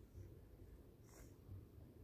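Near silence: a faint low rumble of outdoor background, with one soft, brief rustle about a second in.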